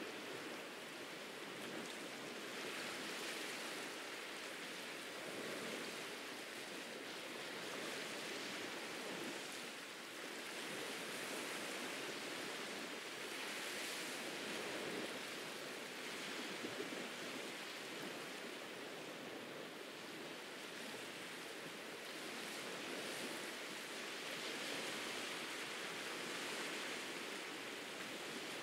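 Small waves washing onto a beach: a continuous surf hiss that swells and eases every few seconds.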